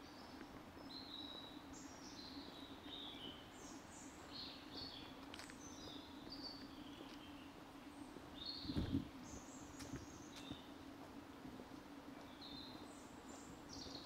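Several woodland songbirds chirping and trilling in short high phrases, over a steady low hum. There is one low thump about nine seconds in.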